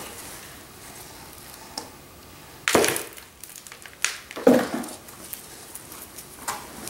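Potting soil and potatoes being handled in a garden pot: a few short rustles and knocks, the loudest about three seconds in.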